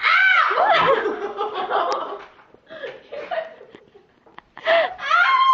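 Girls laughing, loud at first, dying down in the middle, then bursting out again near the end.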